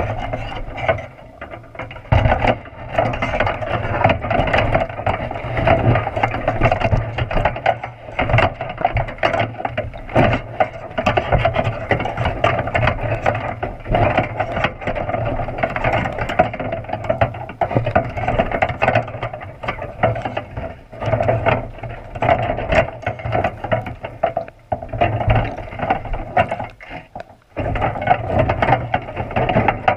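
Underwater, a wire box-style crab trap and its bait holder rattle and knock almost without pause as a sea lion tugs and bites at the bait inside, heard through the camera's waterproof housing. The clatter is dense and rapid, with a few short lulls.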